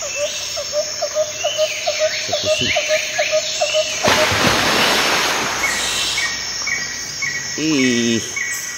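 Outdoor rural ambience of small birds and insects chirping. First comes a fast run of chirps, about five a second, then about a second of noise about four seconds in. After that comes a steady series of short high peeps about two a second, with a brief low call near the end.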